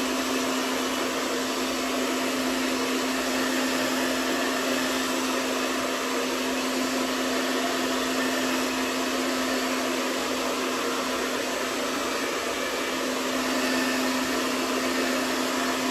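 Handheld hair dryer blowing steadily, a constant rush of air over a low steady hum, drying the adhesive bond under a hair system.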